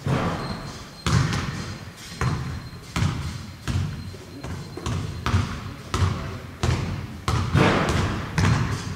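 Repeated thuds, roughly one every three quarters of a second and unevenly spaced, each trailing off in a short fading tail.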